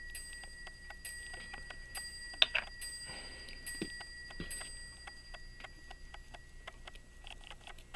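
Freshly cleaned 18-size Illinois Springfield pocket watch movement running, ticking quickly with fast, light clicks that thin out in the second half. There is one sharp, louder click about two and a half seconds in.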